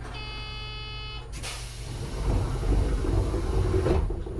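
Door-closing buzzer of a Seibu Yamaguchi Line 8500 series people mover, one steady buzz lasting about a second and a quarter. It is followed by a rush of air and a low rumble as the doors begin sliding shut.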